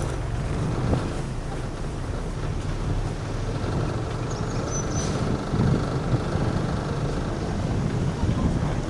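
Steady low rumble of wind and motion noise on a moving camera's microphone, with a brief faint high chirp about five seconds in.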